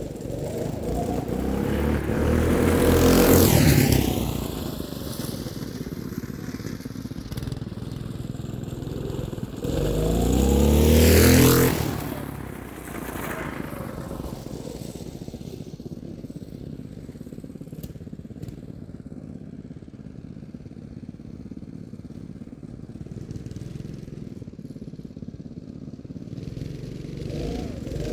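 Twin-engine go-kart driven hard, passing close by twice, about three seconds in and again about eleven seconds in, its engine note dropping in pitch as it goes past. In between and afterwards the engines run fainter in the distance, growing louder again near the end as it comes back.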